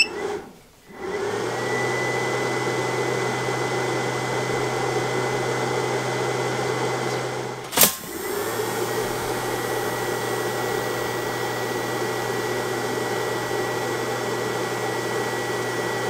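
Cooling fan of a DeWalt DXAEPI1000 power inverter starting about a second in and then running steadily, with a low hum and a thin high electronic whine. A sharp click about eight seconds in comes as a toaster lever is pushed down, after which the inverter carries a load of about 740 W.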